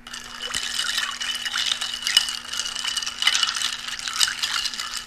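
Ice cubes rattling and clinking against a rocks glass as a whiskey old fashioned is stirred with a thin metal stir stick, a steady jangling that stops at the end.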